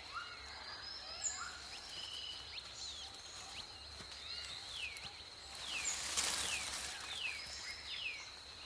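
Tropical forest ambience: several birds calling with short, descending whistled notes, more regularly from about six seconds in, over a steady high-pitched insect drone. A brief rustle comes about six seconds in.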